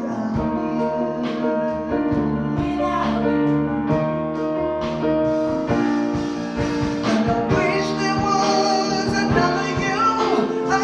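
Live band playing a slow song: a singer at the grand piano sings and plays, with backing vocals, upright bass and drums.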